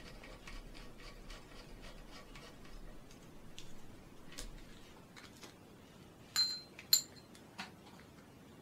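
Small steel mounting screws and a screwdriver handled against a small glass: faint clicks, then two ringing clinks of metal on glass about half a second apart past the middle, and one smaller tap.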